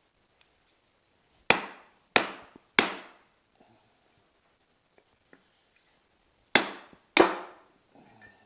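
Five sharp hammer blows, each dying away quickly: three in quick succession about a second and a half in, then two more about a second and a half before the end.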